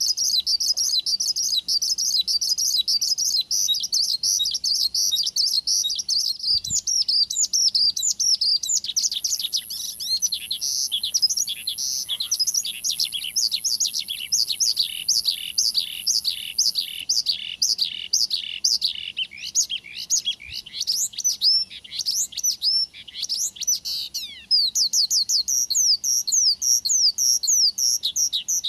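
Male Australasian bushlark in full song: a rapid high twittering that turns, about eight seconds in, into a long run of downward-sweeping notes, several a second. Near the end it breaks back into the fast twitter.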